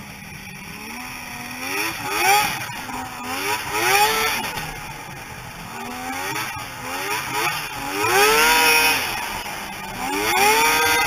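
Snowmobile engine revving up and dropping back about five times, its pitch climbing out of a low idle each time. The longest and loudest pull comes about eight seconds in.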